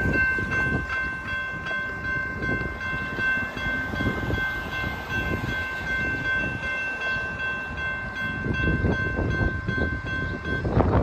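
Railroad crossing bell ringing steadily as the gate arms come down, falling silent about ten and a half seconds in once the gates are lowered. A low rumble runs underneath.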